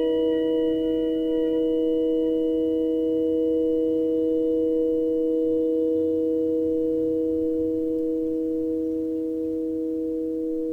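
Several steady pure tones sounding together as one long held chord, with faint higher overtones that die away in the first couple of seconds; the level sinks slightly toward the end.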